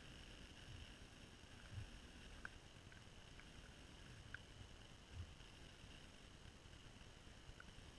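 Near silence: faint outdoor ambience with a steady faint high hiss, a few soft low thumps and a couple of tiny clicks.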